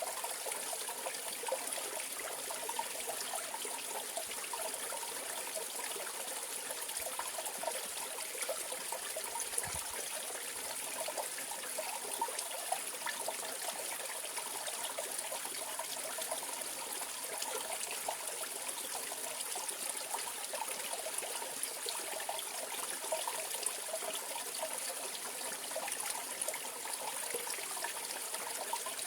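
Mountain valley stream flowing over rocks: a steady rush of water with constant small trickling and splashing.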